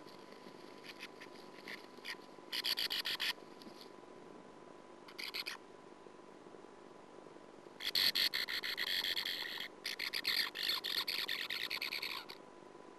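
Sand martin chattering calls heard from inside the nest burrow, in four bursts: two short ones in the first half, then two longer runs of about two seconds each in the second half.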